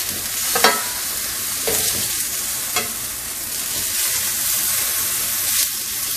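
Shrimp sizzling in a hot nonstick frying pan with a steady hiss. A spatula scrapes and scoops them across the pan in a few short strokes.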